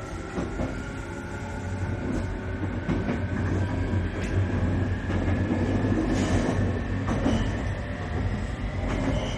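Electric train running, heard from inside the car: a steady low rumble with a thin whine that rises slowly in pitch, and a few clacks from the wheels on the rails.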